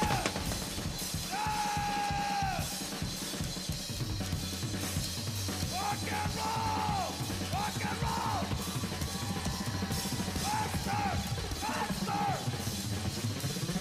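Drum kit playing in live band music, with a steady bass coming in about four seconds in and short high notes that rise and fall over it.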